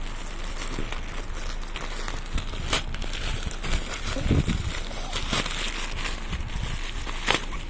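Parcel packaging crinkling and rustling as it is handled and torn open, with scattered small clicks and a dull thump about four seconds in.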